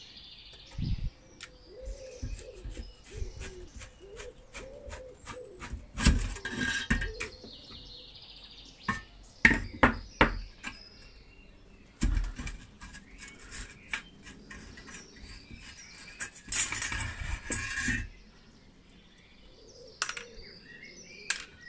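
Pliers and a screwdriver clicking, knocking and scraping on the rusty metal of a Harper Beatrice 33 boiling stove as it is dismantled, with two longer scrapes about six seconds in and near the end. Small birds chirp faintly in the background.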